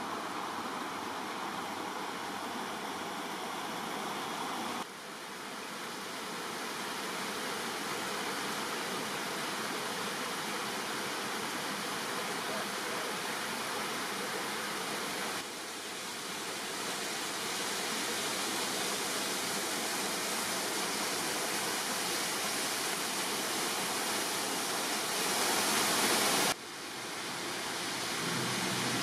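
A waterfall and its creek cascades rushing, a steady hiss of falling and flowing water. The sound breaks off and resumes abruptly three times as the shots change.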